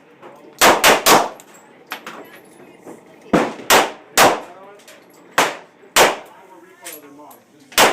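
Handgun shots on a firing range: about nine sharp reports at irregular intervals, some in quick pairs about a third of a second apart, each with a short echo, and a few fainter shots between them.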